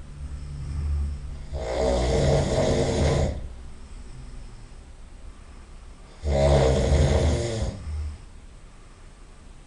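A person snoring loudly: two long snores about four and a half seconds apart, each lasting about a second and a half, with quieter breathing in between.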